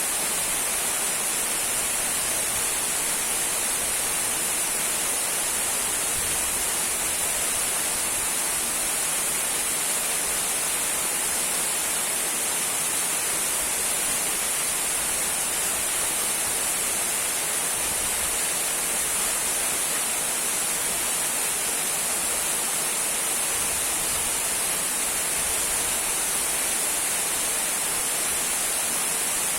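Small trickling waterfall: water falling and splashing in a steady, even hiss that does not change.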